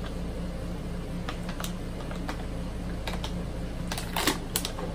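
Thin plastic water bottle crackling in sharp, scattered clicks as it is handled and drunk from, with a louder crinkle about four seconds in. A steady low hum runs underneath.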